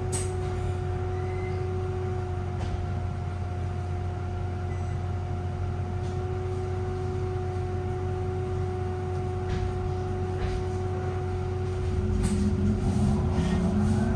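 Steady high-pitched whine from the battery system of a VDL Citea SLFA-180 hybrid bus, held at one pitch over a low hum. A deeper rumble swells near the end.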